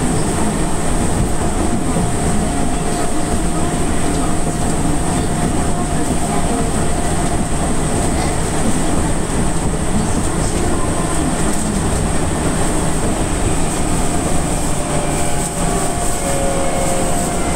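Enshu Railway 1000 series electric train running steadily along the line, a continuous rumble of wheels on the rails with a steady hum from the train's running gear.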